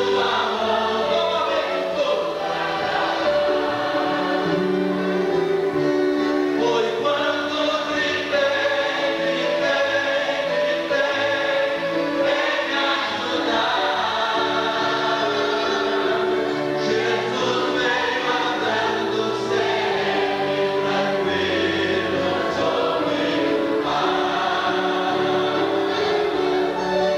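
Church congregation singing a hymn in Portuguese, with a man's voice leading over the microphone.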